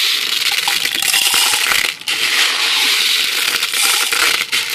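Compressed air from a shop compressor rushing out in a loud steady hiss, cut off briefly about two seconds in, as the air-fed homemade airsoft gun is blown clear.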